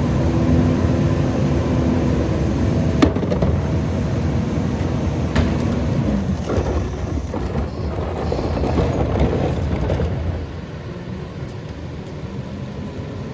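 Rear-loader garbage truck's diesel engine running at raised revs while the cart tipper lifts and empties a wheeled bin into the hopper, with a sharp knock about three seconds in and another about five seconds in. The revs drop back about six and a half seconds in, and the sound gets quieter near the end.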